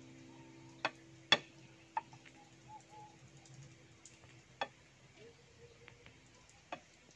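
Wooden ladle knocking against a serving bowl and plate while food is scooped and served: about five sharp, separate clacks, the loudest about a second and a half in.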